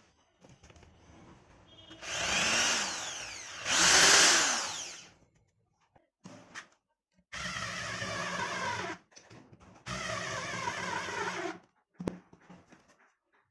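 Electric drill running in two loud bursts whose pitch sweeps up and down, then a power screwdriver running in two steady spells of about a second and a half each, driving screws into the wooden turntable base.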